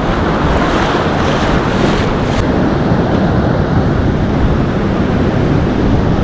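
Ocean surf washing onto a sandy beach, a steady rushing noise; the upper hiss thins out about two seconds in.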